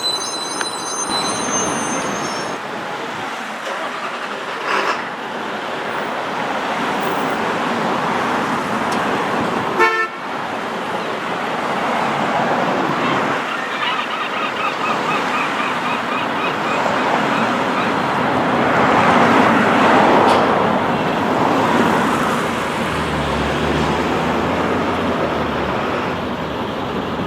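Street traffic noise picked up while walking, with vehicles passing steadily. About ten seconds in there is a sharp knock, and around halfway a pulsing high beep or horn tone sounds for a few seconds.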